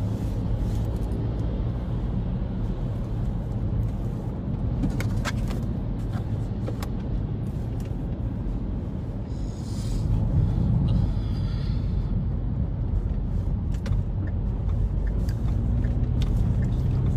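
Steady low rumble of a car heard from inside its cabin, with a few faint clicks; it swells briefly with a rushing hiss about ten seconds in.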